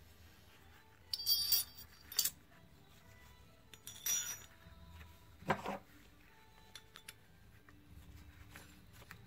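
Metal hand tools clinking and knocking against a motorcycle brake caliper during its strip-down: a cluster of clinks about a second in, then single clinks around two, four and five and a half seconds.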